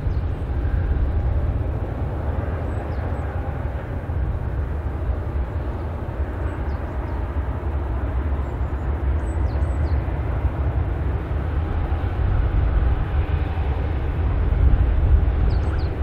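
Gusting wind rumbling on the microphone, with the hum of a jet airliner on the airport apron underneath it.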